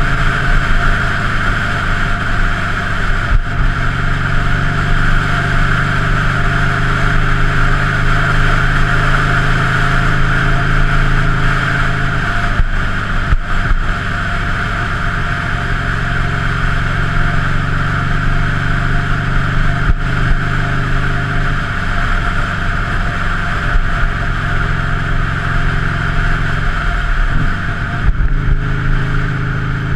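Buell Lightning XB9's air-cooled V-twin engine running steadily under way. Its note changes briefly a few times, about 3, 12, 21 and 27 seconds in.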